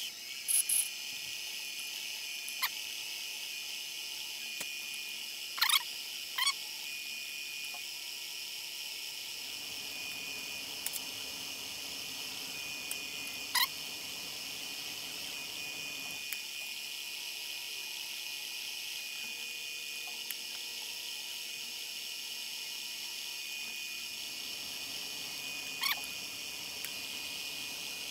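Mini-lathe running with its spindle turning a steel bolt while a twist drill in the tailstock chuck bores the center hole: a steady high whine, with a few brief squeaks.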